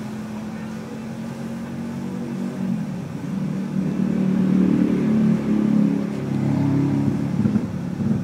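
A motor engine running steadily, growing louder from about three seconds in.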